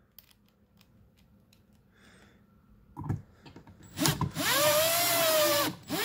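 Cordless drill/driver driving a screw into a metal junction box cover: the motor runs for about two seconds near the end, its whine rising in pitch as it speeds up and falling as it slows. A single click comes about three seconds in.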